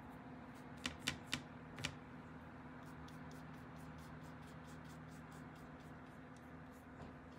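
Paintbrush dabbing and stroking gouache on paper: faint, quick scratchy taps, a few a second. Four sharper clicks about a second in, over a steady low hum.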